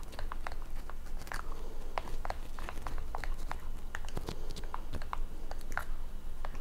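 Spoon stirring chunky peanut butter into melted butterscotch chips in a bowl: an irregular run of small clicks and sticky scrapes as the thick mixture is worked together.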